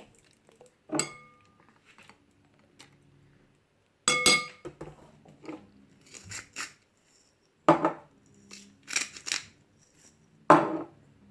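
Kitchen utensils and dishes clinking and knocking while pork ribs are being marinated. The sound comes in about five separate bursts of sharp clatter, some of them ringing briefly.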